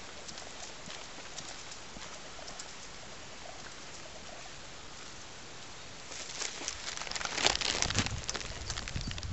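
Wind on the camera microphone: a light steady hiss at first, then gusts buffeting the microphone with a deep rumble in the last few seconds.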